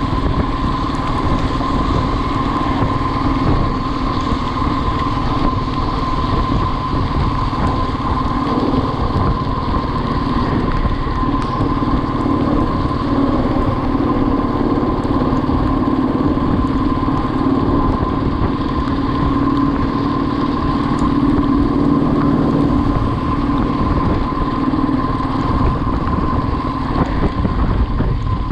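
Motorcycle engine running at a steady pace while riding along a road, with no change in revs.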